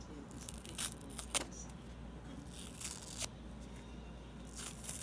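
Foam kitchen sponge being torn apart by hand: several short, crackly rips, the sharpest about a second and a half in and just after three seconds.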